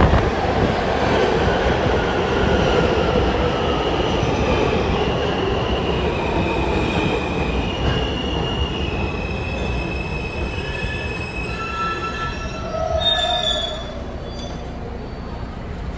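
R160 subway train pulling into a station and braking to a stop: the motors' whine falls in pitch over the first few seconds, then high brake and wheel squeals come and go. The train halts about fourteen seconds in and the sound drops.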